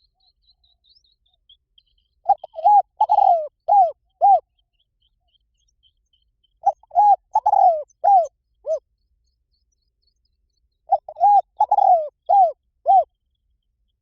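Spotted dove cooing: three phrases of five or six arched coos each, a few seconds apart. This is the call used as a decoy to draw wild doves in.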